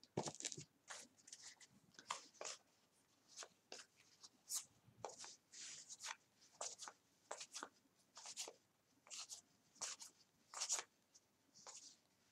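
2018 Gypsy Queen baseball cards being slid one at a time off a stack by hand: a run of faint, quick paper swishes and flicks of card stock, two or three a second, unevenly spaced.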